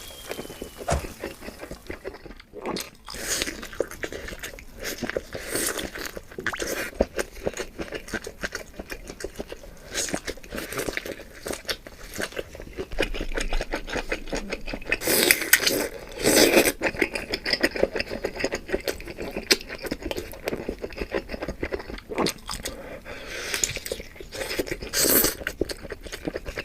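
Close-miked eating: a person biting and chewing, with crunching and scraping sounds. There are louder clusters about halfway through and near the end.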